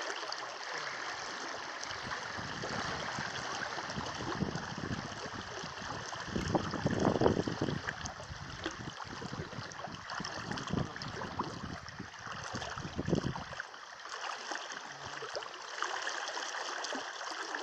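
Shallow river running over riffles, with the sloshing of a person wading knee-deep in rubber waders. Heavier sloshing and rumble come in the middle, loudest about a third of the way through, then stop abruptly.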